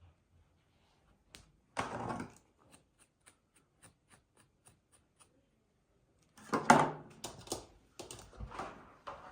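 Craft handling sounds while gluing fur onto a gnome: a short rustling knock, then a run of quick even clicks about four a second, then more rustling, knocks and handling near the end.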